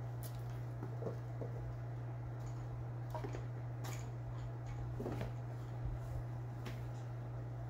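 Two kittens scuffling in a towel-lined plastic pet carrier: scattered light taps, scratches and rustles from paws and claws on the plastic and the towel, over a steady low hum.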